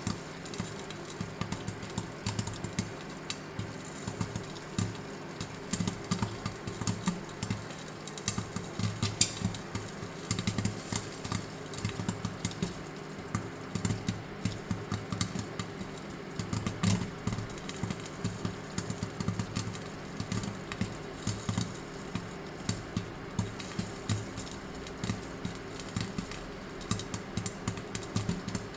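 Popcorn kernels popping in hot coconut oil in a stainless steel pot, many irregular pops in quick succession, over a steady low hum.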